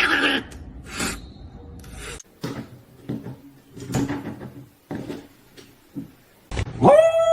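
Scattered knocks and rubbing sounds, like wood or a drawer. Near the end an animal's loud, long howl begins.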